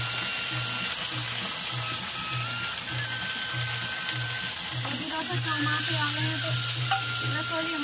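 Hot oil sizzling in a kadhai, the hiss swelling about six seconds in as ground masala paste goes into the oil. Background music with a steady pulsing beat plays throughout.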